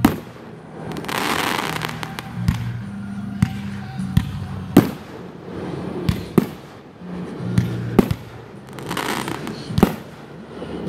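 Fireworks display: aerial shells bursting in a series of sharp bangs, about a dozen, the loudest right at the start and again around five seconds in. Two spells of hiss, about a second in and again near nine seconds, with low steady tones underneath.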